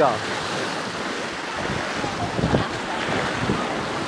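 Sea water washing and foaming over shoreline rocks, with wind buffeting the microphone in gusts about halfway through.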